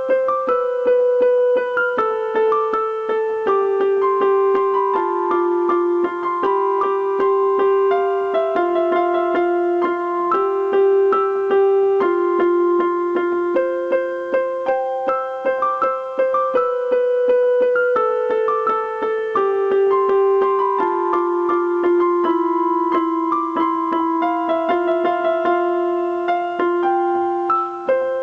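Piano playing a slow, gentle piece: a bass line steps down note by note beneath a melody above it, and the whole phrase starts over about halfway through.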